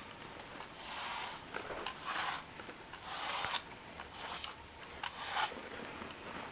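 Pet brush stroking through a cat's fur, five or so slow rasping strokes about a second apart.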